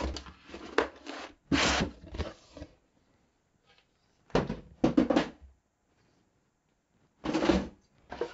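Handling noise from a cardboard kit box and its contents being moved about on a wooden desk: four short bouts of rubbing and knocking, separated by silent gaps.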